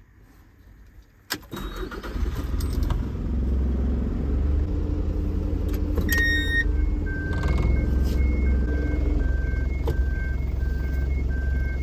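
Truck engine starting with the turn of the key a little over a second in, then running at a steady idle. About six seconds in the automatic gear selector is moved into reverse and the reversing warning beeper starts, a regular beep alternating between two pitches.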